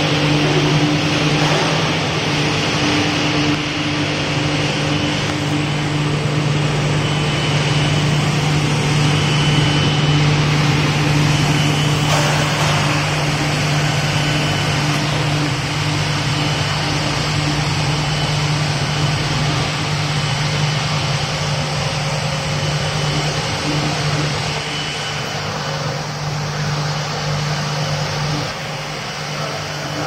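Rubber extrusion and microwave vulcanization production line running: a steady low machine hum over an even rushing noise, easing slightly near the end.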